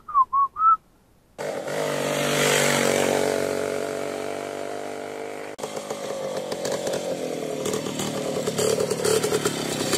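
WSK 125 motorcycle's single-cylinder two-stroke engine running under way, a loud buzzing note that drifts slowly down, breaks off for an instant about halfway, then climbs in pitch toward the end as it is revved. A brief whistled tune comes before it.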